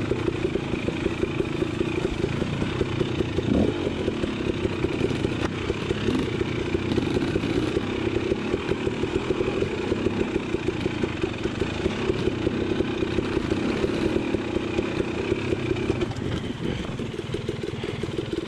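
Off-road vehicle engine running at a steady pitch while riding a trail, its loudness pulsing rapidly.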